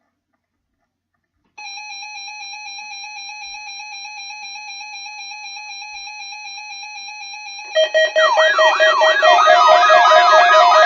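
Instrumental intro music: a steady, slightly wavering synth-like tone enters about one and a half seconds in, and about eight seconds in a much louder, busier passage with guitar-like notes and quick repeated rising-and-falling figures takes over.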